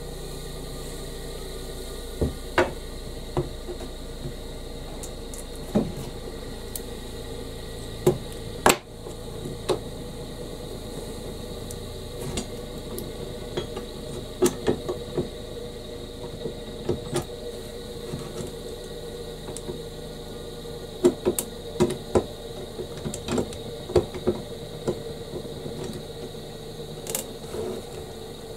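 Scattered clicks and knocks of metal clamps being handled and adjusted on a wooden workbench, over a steady background hum. The knocks come most often in the second half.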